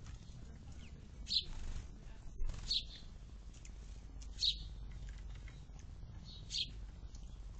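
Bird chirping: about five short, high chirps, spaced a second or two apart, over a low steady background hum.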